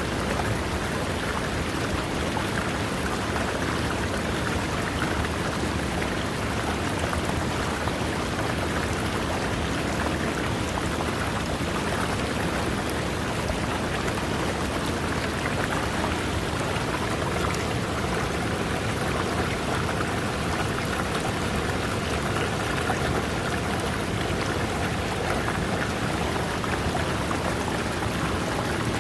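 River water running over rocks: a steady, unbroken splashing and rushing of water that holds an even level throughout.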